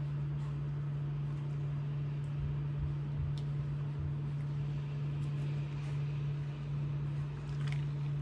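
Steady low electric hum of an induction cooktop heating a pot of broth, with faint bubbling from the boil and a few light ticks of a ladle.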